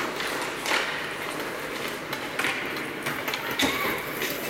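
Ice hockey play: skate blades scraping and carving on the ice, with a few sharp clacks of sticks on the puck.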